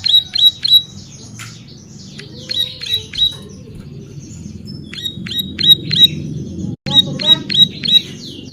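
Ciblek sawah (plain prinia) singing: runs of sharp, high notes repeated about four a second, with a break of a second or two in the middle. A low steady hum lies underneath.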